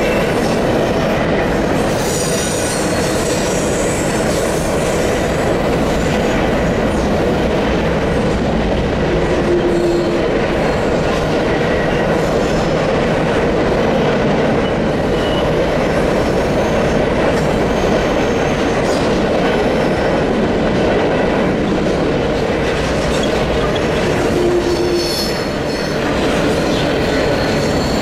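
CN grain train's covered hopper cars rolling across a steel truss bridge, a steady rumble and clatter of wheels on rail. High wheel squeal flares up briefly near the start and again near the end.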